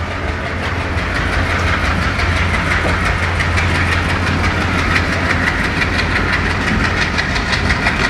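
Passenger train pulling away behind an ALCO diesel locomotive working under power: a steady low engine drone over rail and wheel noise, with a fast, even beat that grows clearer and a little louder as the train gathers speed.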